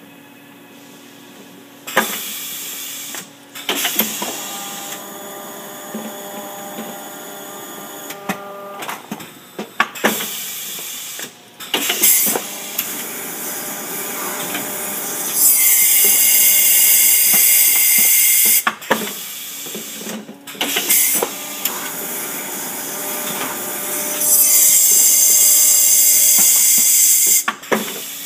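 Kase Equipment heat transfer pail labeler running through its cycle: sharp clacks from its air cylinders and moving parts come at uneven intervals over a steady machine hum with held tones. Twice a loud rushing hiss lasts about three to four seconds, and it is the loudest sound.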